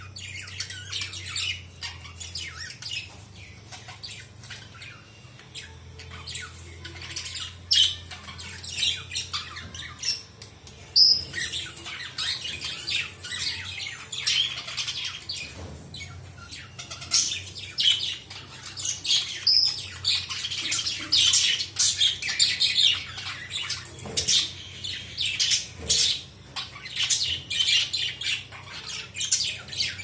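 A colony of budgerigars chattering: a steady stream of short, high chirps and squawks, growing busier and louder about a third of the way in.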